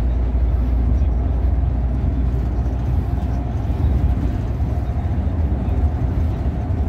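Steady low rumble of a coach's engine and tyre noise heard from inside the passenger cabin while it cruises along a motorway.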